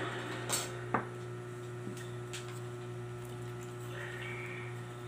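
Steady low electrical hum, with two brief sharp clicks about half a second and one second in.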